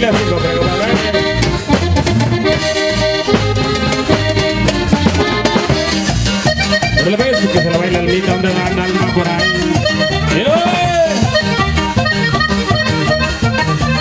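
Live norteño dance music led by an accordion, with string accompaniment and a steady beat.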